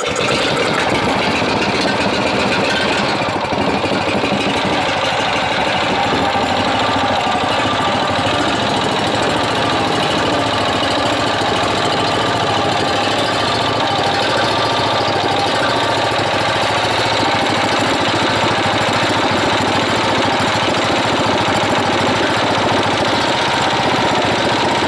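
Freshly reassembled Lifan 20 hp small petrol engine, just started for the first time after the rebuild, running steadily.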